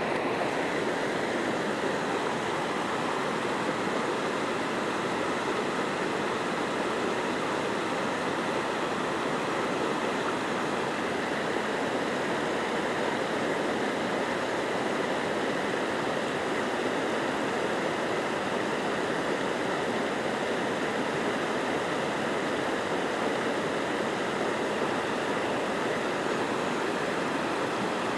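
Shallow, fast river rushing over stones and around boulders: a steady, even rush of water that does not change.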